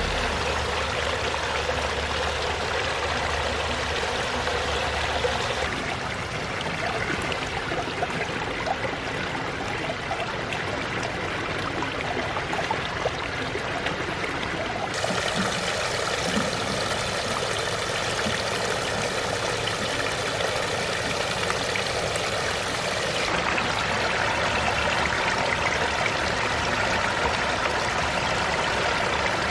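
Water from a small pondless waterfall splashing and trickling steadily over rocks. Its sound changes abruptly about six seconds in, again around the middle and again near the end.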